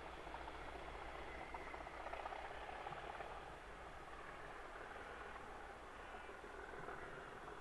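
Faint, steady sound of a diesel locomotive-hauled train running away into the distance, its engines working, slightly louder about two seconds in.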